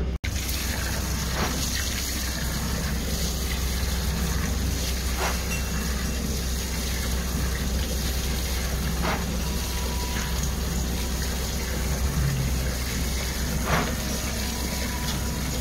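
Horizontal directional drilling machinery running steadily, with a low engine hum under a rushing of water. There are faint knocks about every four seconds.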